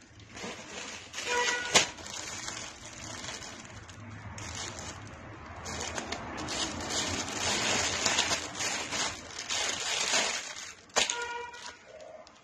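Clear plastic packaging crinkling and rustling as a string-tied bundle of shirts is unwrapped and a shirt is pulled out of its bag.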